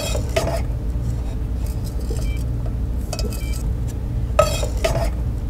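Light metallic clinks and taps of aluminium camping pots being handled, a handful of them, the loudest right at the start and again about four and a half seconds in. A steady low hum runs underneath.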